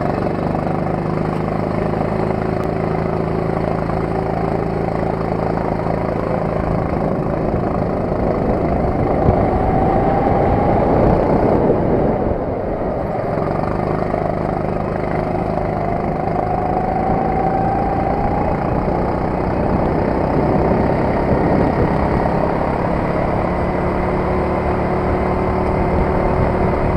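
Four-stroke rental kart engine heard onboard, running at low revs at first, then speeding up with its pitch rising twice and easing off about halfway through between the two pulls.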